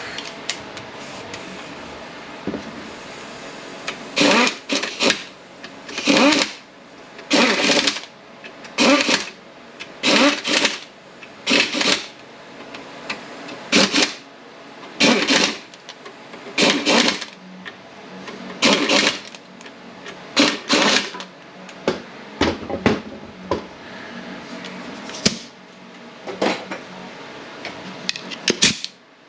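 Short, repeated bursts of a compressed-air tool in a transmission shop, about one burst a second, over a steady background hum.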